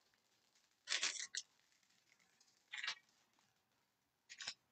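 Trading cards being slid across one another as a stack is flipped through: three short papery swishes.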